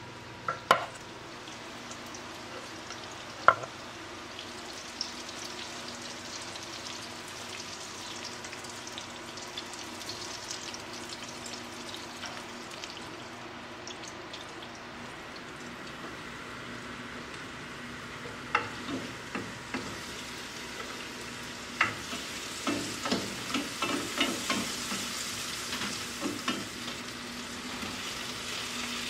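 Oil sizzling in a ceramic frying pan, with a couple of sharp utensil knocks a few seconds in. From about two-thirds through, a wooden spoon stirs and taps garlic, onion and tomato in the pan as the sizzle grows louder.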